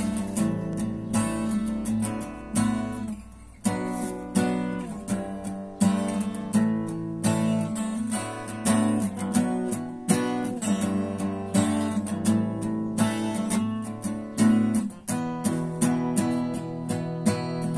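Background music: a strummed acoustic guitar playing chords, with no singing.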